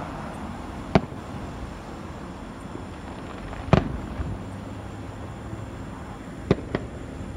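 Aerial fireworks bursting, a series of sharp reports: one about a second in, the loudest near the middle with a smaller one just after it, and a quick pair near the end, over a steady background noise.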